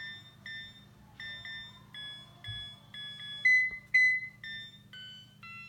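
Musical Christmas angel decoration's electronic sound chip playing a tune in short beeping notes, about two a second. The tune is halting and hiccuping, with two louder notes about three and a half seconds in and a few falling notes near the end.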